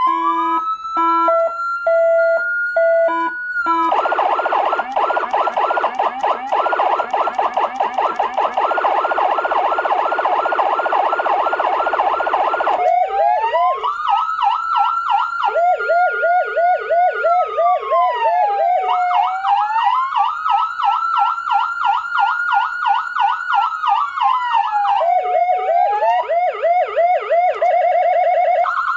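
SA830 400-watt electronic siren played through its speakers, cycling through tones. It opens with a wail that rises and holds high. About four seconds in it switches to a dense, fast yelp that repeats about three times a second. From about thirteen seconds a slow wail rising and falling twice runs under a quick yelp, and a two-tone hi-lo comes in near the end.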